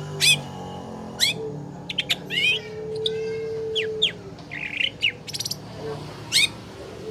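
Long-tailed shrike (cendet) singing a fast, varied song of sharp downward-swept whistles and rapid chattering trills. It is a lure song, played to prompt a silent cendet to sing. A low steady note is held for about a second and a half in the middle.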